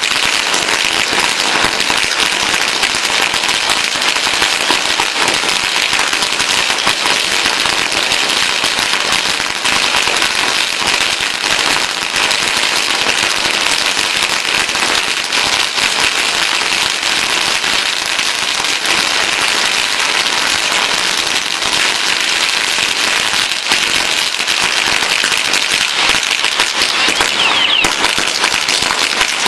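A long string of Chinese firecrackers going off in a dense, continuous crackle of bangs that holds steady without a break.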